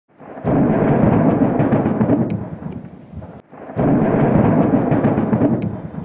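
Two loud rumbling crashes, the first about half a second in and the second at about the middle, each starting suddenly and dying away over about three seconds.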